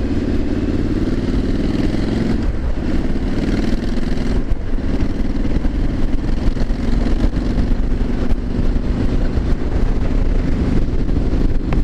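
Triumph Street Scrambler 900's parallel-twin engine pulling under acceleration on the road, its note rising, then dropping at two upshifts about two and a half and four and a half seconds in, before running on at a steadier speed.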